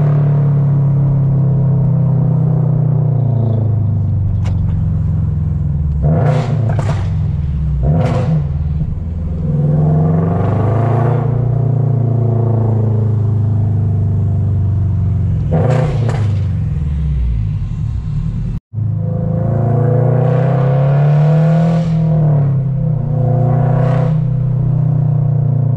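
2023 Toyota GR86's flat-four engine through a straight-piped exhaust while driving: a steady low drone broken by several short, louder surges as the throttle opens and the revs rise and fall. The sound cuts out for an instant about two-thirds of the way through.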